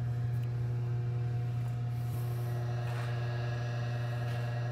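Steady low hum with several fainter steady tones above it, unchanging throughout.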